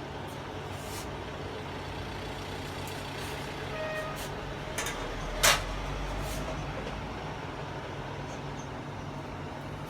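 Steady low background hum and noise, broken by a few light clicks and one sharp, louder click about five and a half seconds in.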